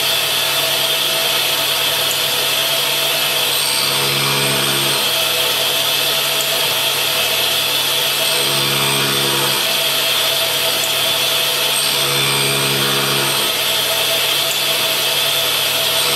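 Clarkson Mark II tool and cutter grinder running, a reinforced cutoff wheel grinding the gullets of a very hard, chipped high-speed steel end mill: a steady, loud grinding noise, with a low hum that comes and goes every few seconds.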